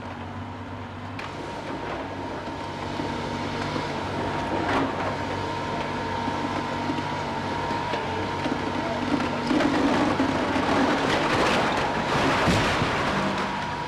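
Crawler excavator's diesel engine running as it tears down a brick house, with masonry and roof timbers cracking and crashing down. The rumble of falling rubble builds up, with a sharp crack about five seconds in, and is loudest from about ten to thirteen seconds in.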